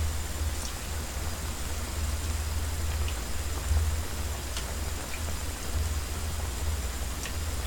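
A pot of beef and radish soup simmering with a steady bubbling hiss. A low hum sits underneath, and a ladle taps lightly against the pot a few times as fat is skimmed off.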